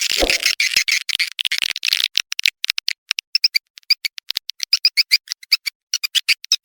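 Swiftlet lure call: rapid, high-pitched twittering chirps of edible-nest swiftlets, of the kind played to draw swiftlets into a nesting house. The chirps are dense at first and more spaced later. A short low falling sweep sounds right at the start.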